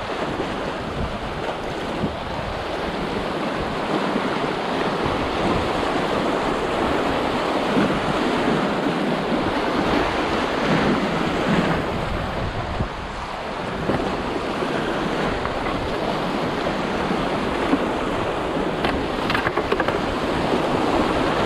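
Rushing whitewater of a small, muddy creek running high, heard close up from a paddleboard going down its rapids.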